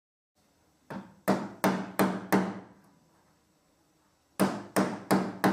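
Hammer tapping a nylon wall plug into a hole in plywood: five sharp knocks at about three a second, a pause, then four more near the end.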